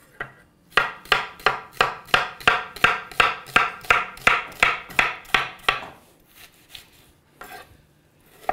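Chef's knife slicing a red onion thinly on a wooden cutting board: a steady run of about three even strokes a second for some five seconds, then a few slower, scattered cuts.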